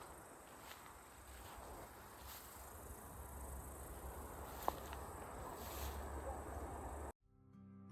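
Rural outdoor ambience: a steady high insect chirring, typical of crickets, over a low rumble, with a few faint taps. It cuts off abruptly about seven seconds in, and soft music begins.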